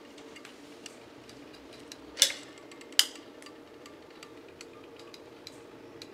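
Caulking gun clicking as its trigger is worked to push out a bead of black silicone sealant. Faint, fairly regular ticks, with two sharper clicks about two seconds in and a second later.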